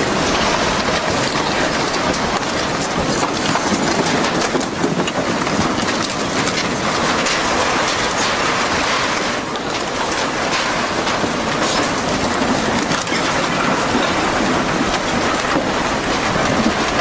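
Steady loud rushing and crackling of the tsunami's flood water pouring through the town, with no single event standing out.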